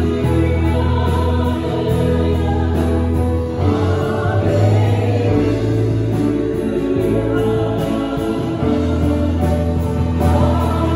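Live contemporary worship band: a man and a woman singing over keyboard, electric guitar, bass and drums. The sustained low bass notes change with the chords every few seconds.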